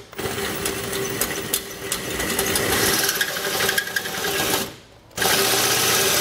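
Drill running a 1 1/4 inch hole saw that is cutting through the car's metal frame rail, the motor turning steadily as the teeth grind into the steel. It stops briefly about five seconds in, then starts again.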